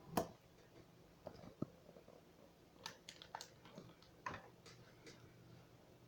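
Faint, scattered clicks and small knocks over a low steady hum. The loudest click comes just after the start, and a cluster of them follows about three to five seconds in.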